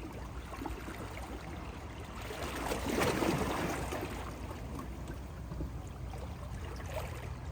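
Sea water washing and trickling, swelling louder about three seconds in as a wave comes through, over a steady low rumble.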